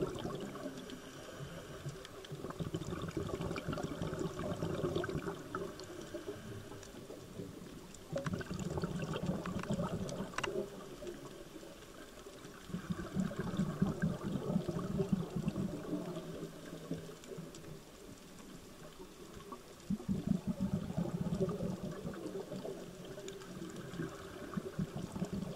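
Scuba regulator breathing underwater: bursts of bubbling exhaust bubbles about every five or six seconds, with quieter stretches between.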